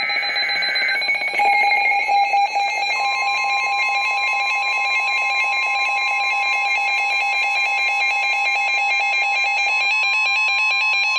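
Emergency Alert System attention signal: a loud, steady two-tone alarm that announces an emergency alert. A second, slightly higher tone joins about three seconds in.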